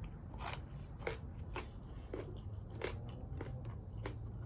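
A person chewing crunchy food close to the microphone, a crisp crunch about twice a second.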